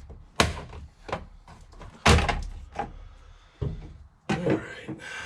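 A series of sharp knocks and clunks from hard plastic trim, about six in five seconds, the loudest about two seconds in. This is the plastic steering-column cover being pried off its clips and handled.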